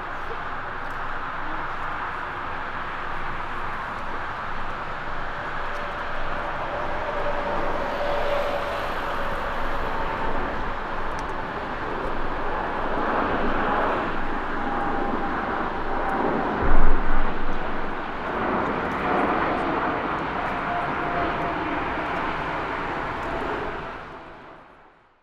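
Jet airliner engines running: a steady loud rush with faint whining tones, a brief low bump about two-thirds of the way through, fading out near the end.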